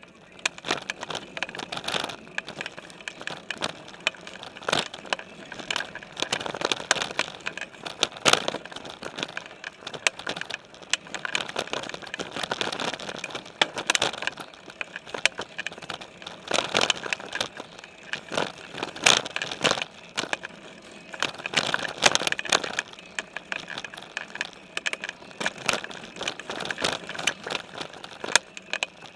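Specialized Stumpjumper mountain bike ridden over a dirt trail covered in dry leaves, heard from a camera on its frame: constant clattering and rattling over bumps, with the tyres crackling through the leaves.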